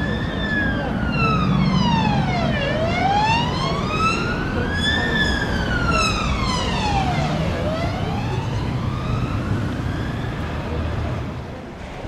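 A siren wailing, its pitch sweeping slowly up and down about every five seconds, over a low steady rumble.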